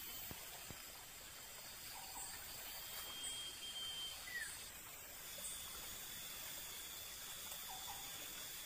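Faint outdoor ambience among dense vegetation: a steady hiss with a few short, faint chirps and whistles from small animals or birds scattered through it.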